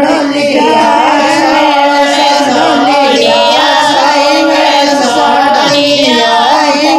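A Bagri devotional bhajan sung in a high voice with musical accompaniment, loud and continuous, its long notes wavering in pitch.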